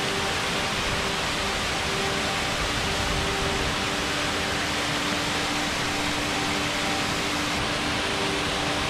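Steady, even rush of falling water from a waterfall, with faint held tones beneath it.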